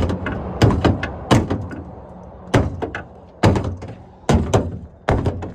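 A series of sharp knocks on the car's rear body panels, irregularly spaced at about one a second, each with a short ringing tail: the sound of banging the metal out around the trunk.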